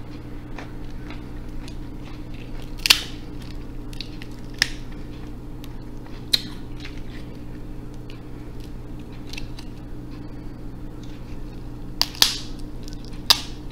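Snow crab leg shells cracked and snapped apart by hand: a handful of sharp cracks spread out, the loudest two close together near the end.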